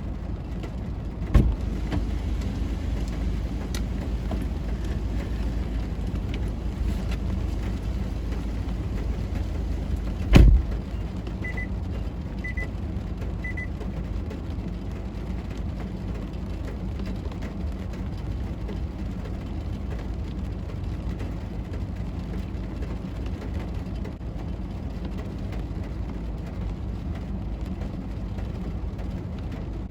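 Steady low rumble of a car on the move, heard from inside. It is broken by two sharp thumps, one about a second in and a louder one about ten seconds in. Three short high beeps follow about a second apart.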